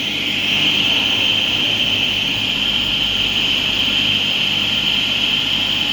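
Stone-working machine running steadily under load, its tool working a stone slab while the table feeds at a raised speed. It makes a steady high-pitched whine over a low hum.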